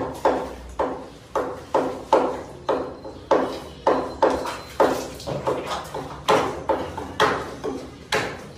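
Sheep hide being torn off a hanging carcass by hand: a rapid, even run of slapping, ripping strokes, about two to three a second, each dying away quickly in a tiled room.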